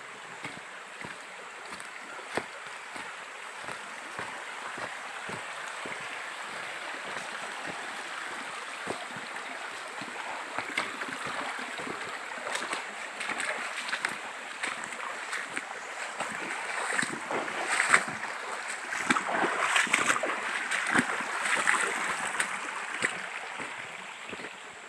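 Rushing stream water, a steady hiss that grows louder through the second half, with scattered short clicks and knocks over it.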